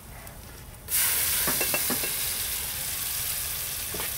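Crushed tomato poured onto onions frying in hot oil in a steel pot: a sudden loud sizzle about a second in that slowly dies down.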